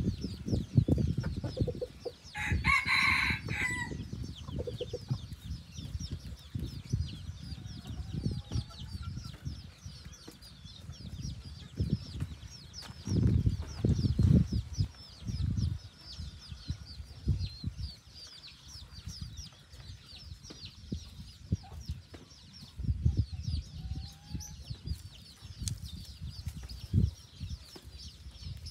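A red junglefowl-type rooster crows once, a short crow about two and a half seconds in, with a few soft clucks later on. Throughout there is a constant high ticking chatter and frequent low thumping rumbles.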